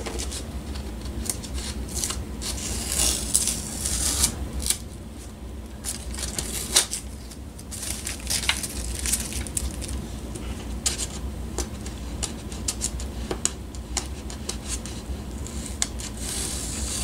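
Hands handling a foam model float wrapped in blue painter's tape: scattered clicks, rustles and short tearing noises as the tape is picked at and pressed down, over a steady low hum.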